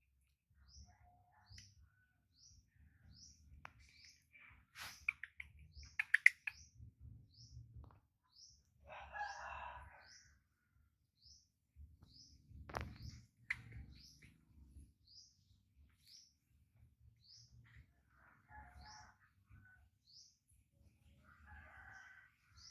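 A small bird repeats a short, rising, high chirp about once a second. A rooster crows a few times in the background. A few sharp knocks or clicks come about five to seven seconds in, and another about thirteen seconds in.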